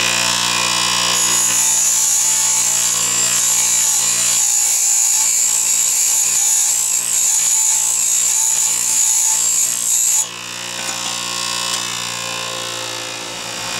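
Bench grinder's coarse wheel grinding a soft steel threading-tool blank freehand: a steady high hiss over the motor's hum. The hiss stops suddenly about ten seconds in as the blank is lifted off the wheel, leaving the grinder running free.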